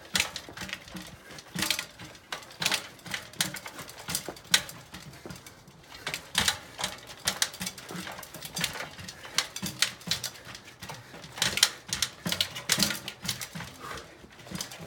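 Road bike with carbon wheels knocking and clattering on stone steps as it is hopped up a staircase one step at a time: irregular sharp knocks, often in quick clusters, a second or so apart.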